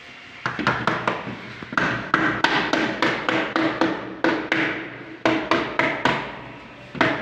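Soft-faced mallet tapping a glazing bead into the top of a uPVC fixed window frame, a run of quick sharp knocks, about three or four a second, in short bursts with brief pauses, each with a short plasticky ring. The beads are being knocked home to hold the glass in place.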